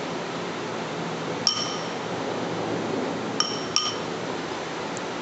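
Metal spoon stirring a dry ground spice mix in a glass bowl: a steady scraping rustle, with three ringing clinks of the spoon against the glass, one about a second and a half in and two close together about three and a half seconds in.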